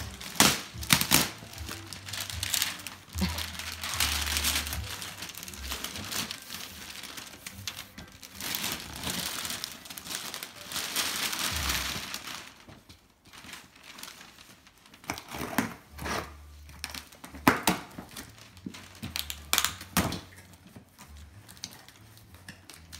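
Gift wrapping paper rustling, tearing and crumpling as a present is unwrapped: dense crinkling in bursts for the first half, then quieter with scattered sharp crackles.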